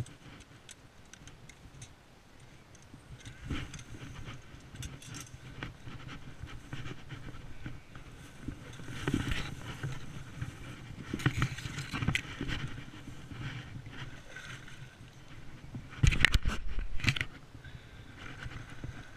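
Handling noise: grass, leaves and clothing rustling and scraping against a body-worn camera as someone pushes through bankside vegetation, with scattered knocks and clatters and a louder burst of them near the end.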